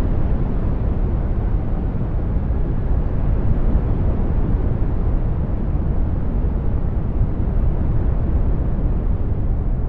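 Synthetic brown noise: a steady, deep rumbling hiss, strongest in the bass, that swells and eases slightly as it slowly shifts.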